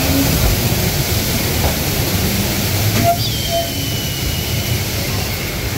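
Open mine-ride train cars rolling along their track with a steady rumble, and a thin high squeal starting about halfway through and lasting under two seconds.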